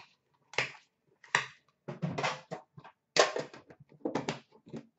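Handling noises: a run of short knocks, clacks and rustles as cards are handled and a small metal tin case is shut.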